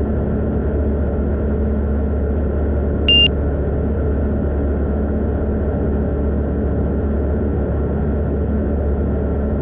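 Van's RV-12iS's Rotax 912 iS engine and propeller droning steadily in cruise, heard inside the closed cockpit. A single short, high electronic beep sounds about three seconds in.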